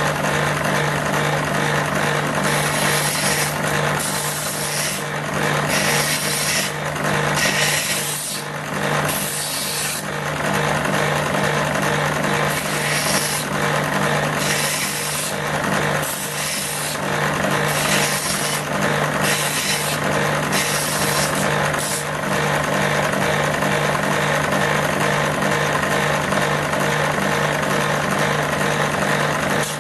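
A workshop machine motor runs with a steady hum while a brass part is rasped against an abrasive or file in repeated short strokes. This is deburring the sharp edge that turning leaves on brass. The strokes come roughly once a second through the first two-thirds, then give way to a steadier rubbing.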